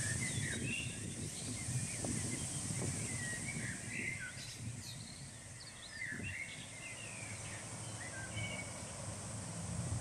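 Small songbirds chirping and twittering in short, scattered calls, over a low rumble of wind on the microphone and a steady high-pitched hiss.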